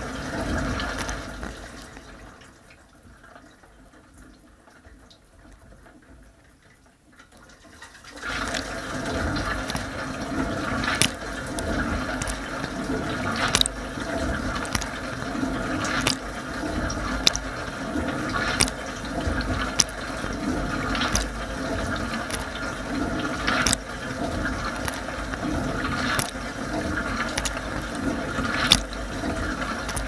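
Water spraying and splashing inside a Bosch dishwasher during its wash cycle. The spray dies away about two seconds in and stays low for several seconds, then comes back strongly about eight seconds in, with a steady rush and sharp splashing hits every second or so.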